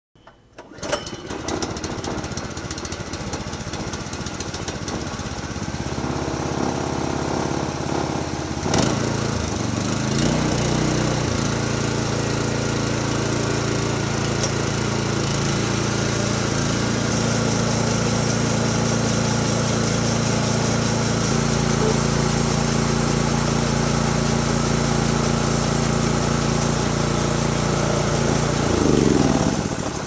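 Homemade band sawmill driven by a 6.5 hp single-cylinder gas engine, running steadily under load as its band blade cuts through a cedar log. A sharp knock and a shift in engine pitch come about nine to ten seconds in, and near the end the engine winds down.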